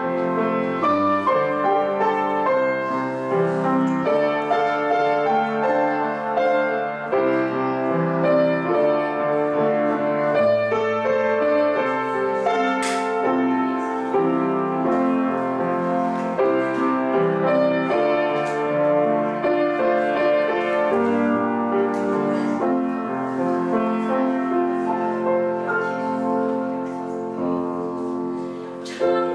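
Piano playing the introduction to a song, a run of held chords and melody notes, with no voice yet.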